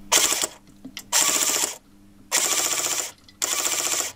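Airsoft MP5 replica firing on full auto: four short bursts of rapid, evenly spaced shots.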